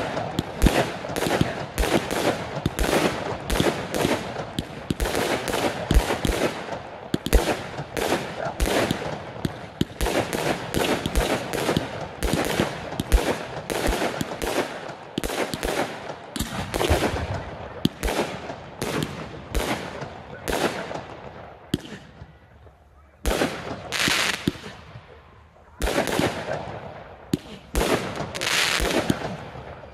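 A fireworks display: rapid volleys of bursting shells with crackling reports, near-continuous for most of the time, then thinning to a few separate bursts with short gaps near the end.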